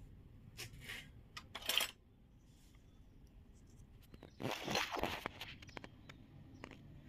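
Miniature steel and plastic toy kitchen pieces clinking and scraping as they are handled: a few short clinks in the first two seconds, the loudest just before two seconds in, then a longer burst of clattering and scraping around the middle.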